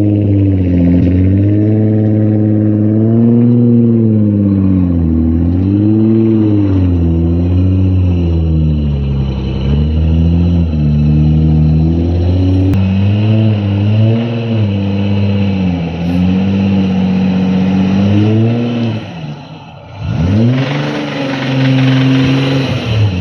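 Nissan 300ZX twin-turbo VG30DETT V6 revved hard again and again, its pitch climbing and falling every second or two, with a brief drop near the end before it revs back up. The engine has a rod knock.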